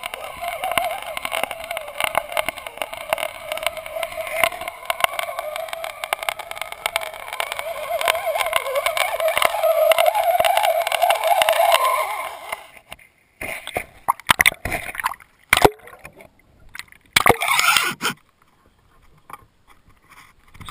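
Water rushing past a GoPro's waterproof housing as it is towed underwater on a fishing line: a steady, muffled rush with many small clicks and knocks. About thirteen seconds in this breaks up into separate splashes and sloshes with quiet gaps between them.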